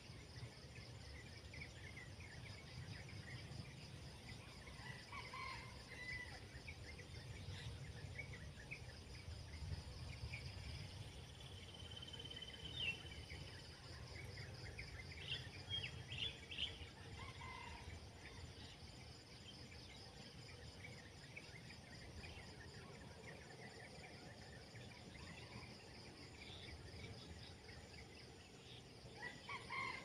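Outdoor ambience: scattered short bird calls, a cluster of them about halfway through, over a steady high insect buzz and a low rumble.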